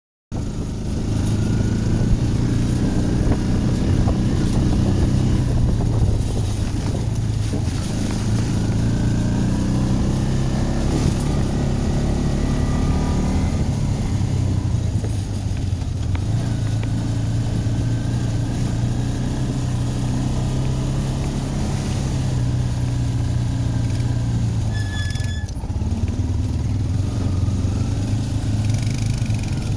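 Quad bike (ATV) engine running steadily while driving along a rough dirt track, its note dropping briefly a couple of times.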